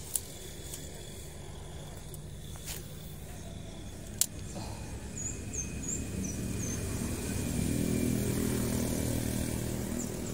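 A motor vehicle passing on a road: its engine hum grows louder through the second half and is loudest near the end. Two sharp clicks, one just at the start and one about four seconds in.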